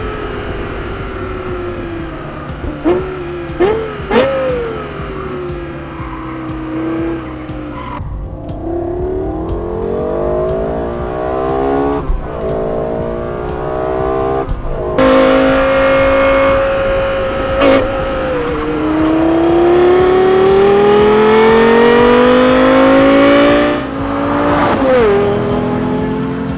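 Lexus LFA's 4.8-litre V10 revving hard. The revs fall at first, then there are two quick throttle blips about three to four seconds in. After that come rising pulls broken by gear changes, a long climb in pitch through the later part, and another quick blip near the end.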